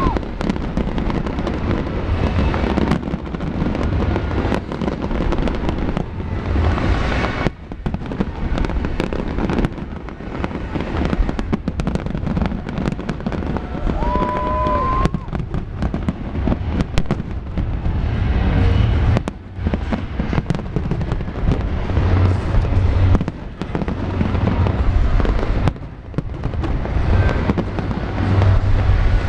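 Big fireworks display: a continuous barrage of deep bangs and crackling bursts, many overlapping, with a short whistle about halfway through.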